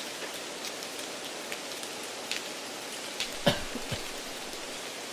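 Steady hiss of added background noise with scattered small crackling ticks, laid over a listening-test recording to imitate a poor test-room sound system. There is one louder short sound about three and a half seconds in.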